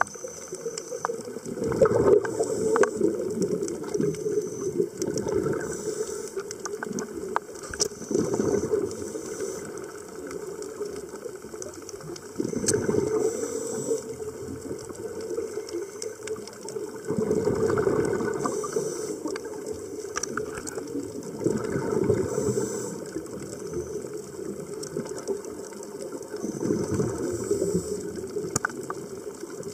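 Scuba diver breathing through a regulator underwater: exhaled bubbles gurgle out in bursts every four or five seconds, with the regulator hissing and clicking between breaths.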